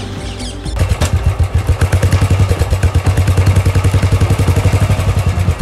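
Motorcycle engine running while riding, a loud, rapid and even pulsing over a low steady hum, starting about a second in.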